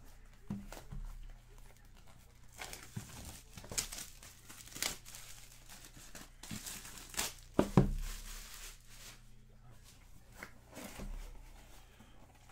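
Plastic wrapping crinkling and rustling while a cardboard box is handled and opened, in irregular bursts. A couple of sharp knocks with a dull thud a little under eight seconds in are the loudest sounds.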